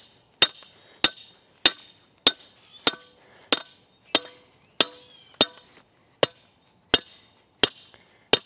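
Heavy hammer striking the top of a steel fence post to drive it into the ground: about thirteen ringing metal-on-metal blows, a little under two a second, spacing out slightly near the end.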